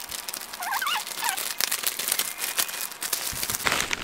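Plastic bubble-wrap packaging crinkling and crackling as it is handled and pulled open by hand.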